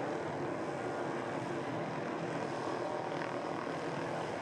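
Helicopter hovering close by, its rotor and engine running steadily with no change in level.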